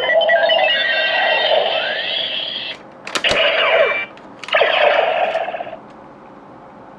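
Electronic sound effects from the small speaker of a DX Neo Decadriver toy transformation belt: a chiming tone sequence with rising sweeps, a sharp click about three seconds in, then two short bursts of effect sound, falling quiet to a faint hiss near six seconds.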